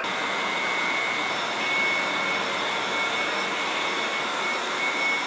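Fukuoka City Subway train and platform noise: a steady hiss with a high whine running through it.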